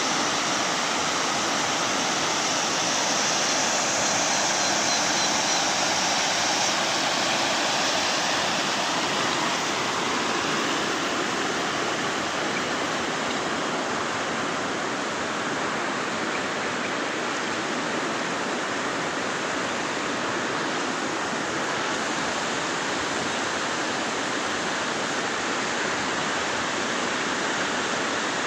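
A muddy river in flood rushing over rocks and rapids: a steady, loud wash of fast-moving water.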